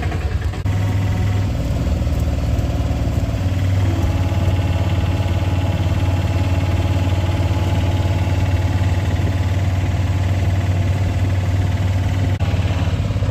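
Auto-rickshaw engine running as it drives along a road, heard from inside the open passenger cabin: a steady, loud low drone.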